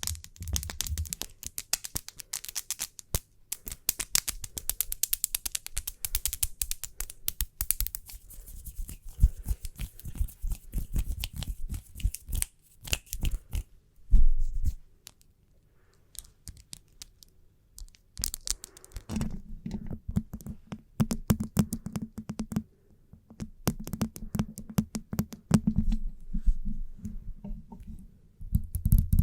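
Close-miked fingernails tapping and scratching in fast, irregular clicks, with a louder knock about halfway and a few seconds of near quiet after it before the tapping resumes.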